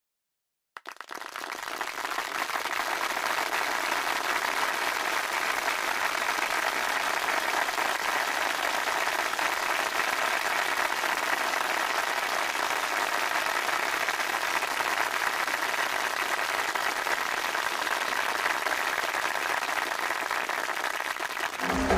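Audience applauding steadily, starting about a second in and stopping near the end.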